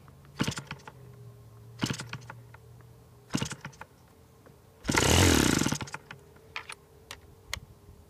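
Fox .50 model engine with a Davis diesel conversion being hand-flipped by its propeller: three short sharp flips about a second and a half apart, then about five seconds in it catches and runs for about a second before stopping. A hard-starting engine even when warm.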